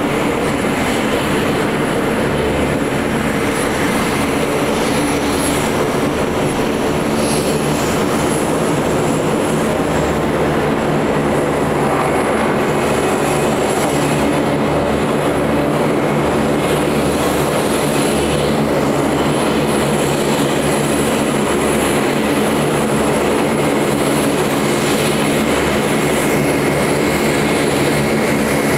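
Lockheed Martin HC-130J Combat King II's four Rolls-Royce AE 2100D3 turboprops running at taxi power as the aircraft taxis: a steady propeller drone with a thin, high turbine whine.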